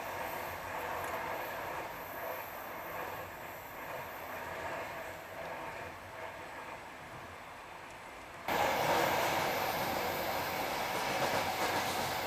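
Running noise of a moving train, heard from aboard, with the clatter of wheels on rails. About two-thirds of the way through it suddenly becomes louder and stays so.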